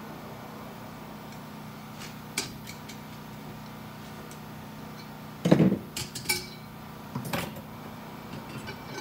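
Metal clinks and a clatter from a 4L60E transmission's 3-4 clutch drum as the snap ring is popped out with a pick and the clutch pack is handled: a single click about two seconds in, the loudest clatter about halfway, then a few more clinks, over a steady low hum.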